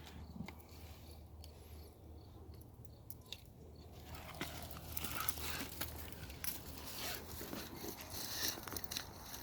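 Faint rustling with scattered small clicks over a low steady hum, growing busier about halfway through.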